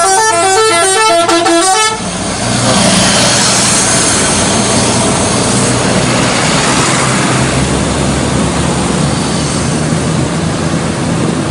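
Multi-tone telolet bus horn playing its quick stepping tune, which stops about two seconds in. It is followed by a loud, steady rush of noise with an engine hum underneath.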